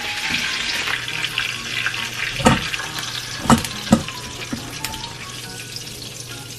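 Pork belly pieces sizzling in hot rendered fat in a pan as they are scooped out, with three sharp knocks of a utensil against the pan in the middle, the last two close together. The sizzle slowly dies down.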